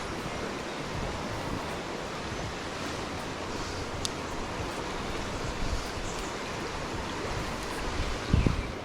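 Stream water rushing steadily, the creek running high after rain. A brief low thump comes near the end.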